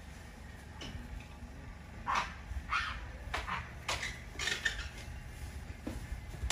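Monkeys on a corrugated metal roof make a string of short, sharp sounds, about two a second, starting about two seconds in.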